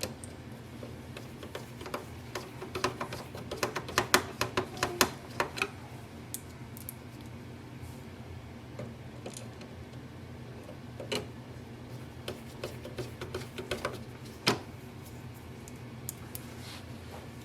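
A screwdriver driving screws back into a printer's plastic frame: quick runs of small clicks and taps, dense a few seconds in and again later, with one sharper knock near the end. A low steady hum lies under it.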